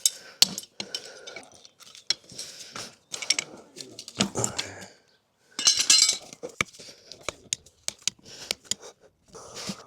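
Farrier's metal tools clinking and tapping in short, irregular clicks, with a denser, louder stretch about halfway through.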